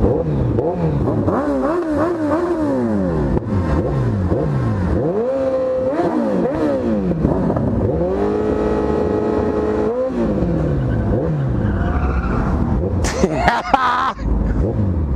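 Inline-four sport motorcycle engines revved again and again, the pitch climbing and falling in quick blips, with one rev held high for about two seconds in the middle.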